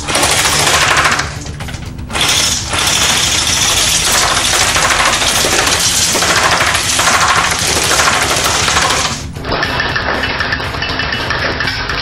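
Airsoft Steyr AUG rifle firing in long full-auto bursts, with BBs hitting the target board and wine glass. About nine seconds in, the sound changes abruptly to a duller, narrower sound.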